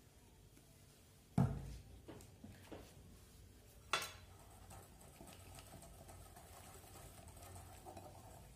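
Wire whisk stirring thick sugar glaze in a glass bowl: two sharp knocks of metal on glass, the first about a second and a half in and the second about four seconds in, with a few lighter clicks between, then steady soft whisking.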